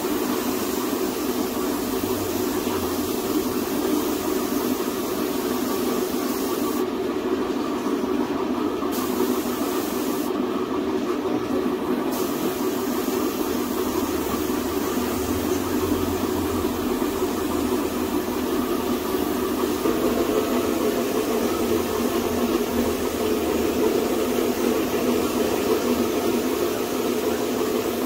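Compressed-air paint spray gun hissing steadily as it sprays paint, over the steady running of its air supply. The high hiss cuts out twice for about two seconds, about a quarter and a third of the way in, as the trigger is let go.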